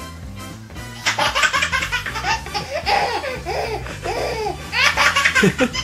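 A baby laughing at a cat: a string of short, high-pitched giggles and belly laughs, starting about a second in.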